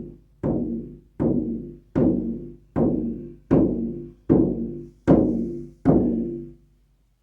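Handmade harmonic shamanic horse-hide frame drum with a cedar rim, struck at a slow, even beat: about eight strokes, roughly three-quarters of a second apart. Each stroke rings on with several overtones and dies away before the next. The last stroke fades out near the end.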